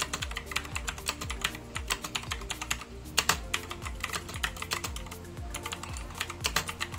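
Fast, irregular typing on a Razer BlackWidow V3 mechanical keyboard with Razer Green switches: a continuous stream of clicky keystrokes, several a second. Background music plays underneath.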